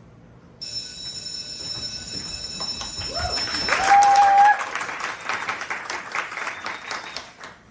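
An electric school bell rings steadily for about three seconds, ending the scene, then an audience applauds, with a loud whoop about four seconds in, and the clapping fades near the end.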